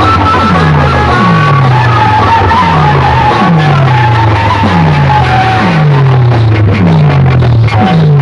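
Loud music blaring from large outdoor PA loudspeaker systems. A deep bass hit drops in pitch and repeats about every 0.8 s under a higher melody.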